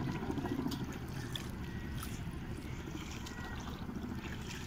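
Calm sea lapping at the shore, small waves trickling, over a steady low rumble.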